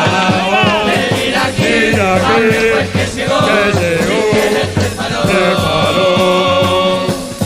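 Murga chorus singing in several-part harmony over murga percussion: bass drum and cymbals keeping a steady beat.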